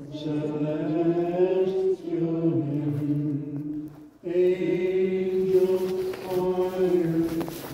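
Voices singing a slow church hymn in long held notes, with a short break about two seconds in and another just after four seconds.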